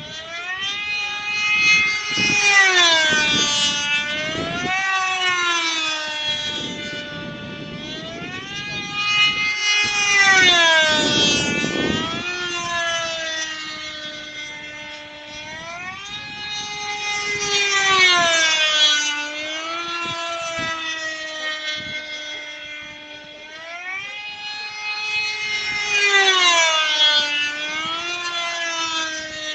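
Radio-controlled model airplane's small engine running at high revs while the plane flies circuits. It swells and its pitch rises and then drops each time it passes, about four passes.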